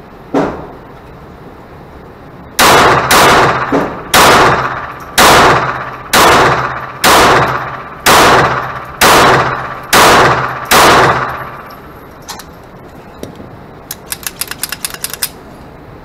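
Ten shots from a Ruger SR22 .22 LR semi-automatic pistol, fired about one a second, each crack trailing off in the reverberation of an indoor range. A single fainter shot comes just before the string, and a quick run of light clicks follows a few seconds after it.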